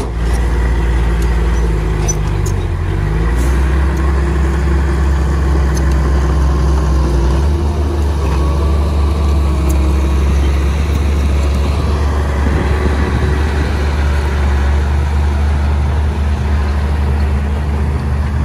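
Diesel engine of heavy earthmoving machinery running steadily under load, its revs dipping and rising again about two to three seconds in.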